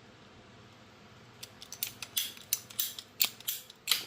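A radiator hose being cut off at its brittle plastic fitting with a hand cutting tool: a run of short, sharp cutting strokes, about three a second, starting about a second and a half in.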